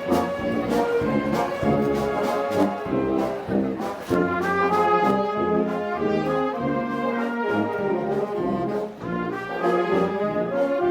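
Brass band music of trombones, trumpets and horns playing festival band music. Percussion strikes mark the beat for the first few seconds, then the brass carries on in held chords.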